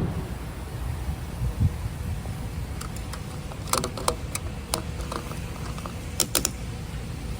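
Gas pump nozzle and gas can being handled: a scattered run of sharp clicks and clacks, some in quick pairs, over a steady low rumble.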